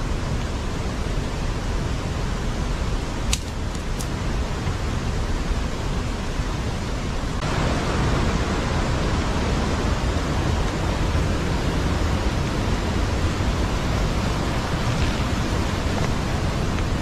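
Steady rushing of a fast-flowing river over rocks, louder and brighter from about seven and a half seconds in. Two sharp clicks about three and four seconds in.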